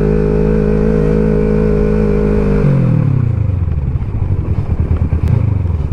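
Kawasaki Versys 650's parallel-twin engine running under way. Its pitch falls about two and a half seconds in as the revs drop, and it then runs lower and rougher.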